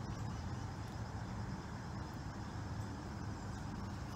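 Steady outdoor background noise: a low rumble with faint, steady high-pitched tones above it.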